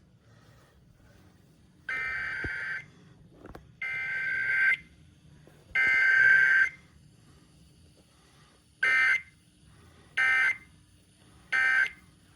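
Emergency Alert System digital data bursts, the harsh two-tone warble of the SAME code. Three bursts of about a second each carry the alert header, and three shorter bursts near the end send the end-of-message code. No attention tone sounds between them, as in a weekly test.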